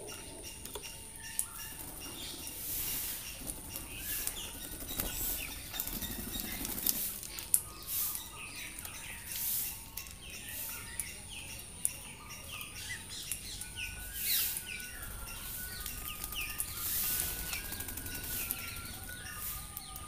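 Rose-ringed parakeets at a feeder: many short scattered chirps and calls, with flapping wings as birds come and go.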